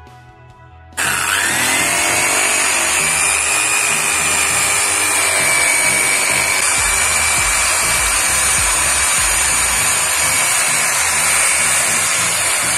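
Handheld electric drill switched on about a second in, its whine rising as the motor spins up, then running steadily at full speed with a foam buffing pad polishing a chrome headlamp.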